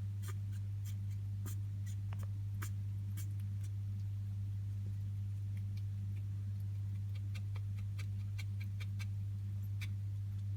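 A pet rat sneezing again and again: tiny sharp clicks at irregular intervals, coming in quicker runs in the second half. A steady low electrical hum runs under them and is the loudest sound.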